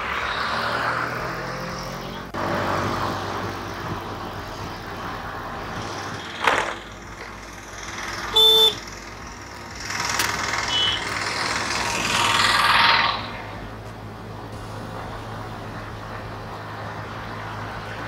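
Road traffic heard from a moving vehicle: passing vehicles swell and fade over a steady low hum, with a short horn blast about eight and a half seconds in.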